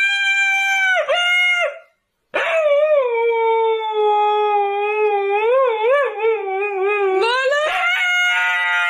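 A husky howling. A higher howl breaks off after about two seconds; after a short pause comes one long, lower, wavering howl that jumps up in pitch about seven seconds in.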